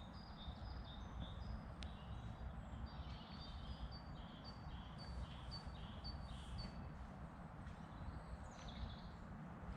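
A small songbird singing, a run of short high notes alternating between two pitches, repeated a few times a second through the middle of the stretch. Under it is a faint steady low rumble of outdoor background noise.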